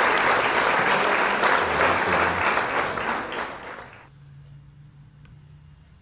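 Applause: dense clapping that fades away about four seconds in.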